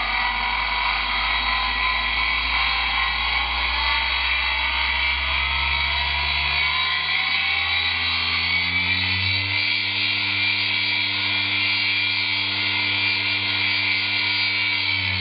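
Three-phase induction motor running on a VFD frequency inverter, with a steady high-pitched electrical whine over a low hum. The hum rises in pitch as the motor speeds up about halfway through, holds, then starts to drop right at the end. The motor's bearings are worn.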